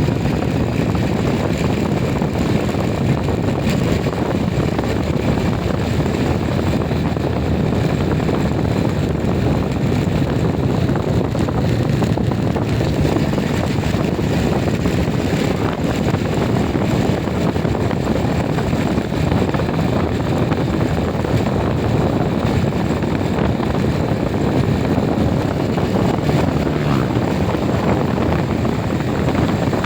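Steady low rumble of a vehicle on the move, unbroken throughout.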